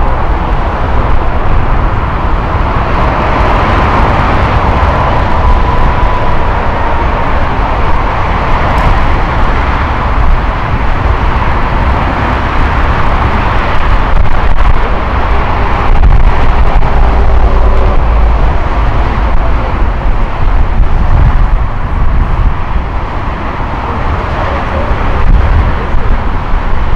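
Loud, steady jet-aircraft engine noise: a deep rumble that holds throughout, with a faint high whine in the first several seconds.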